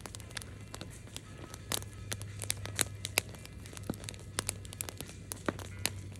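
Campfire crackling: burning wood giving irregular sharp snaps and pops, several a second, over a steady low hum.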